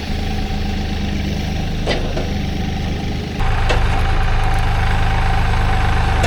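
An engine idling steadily, getting louder in one sudden step about three and a half seconds in, with a couple of short clicks.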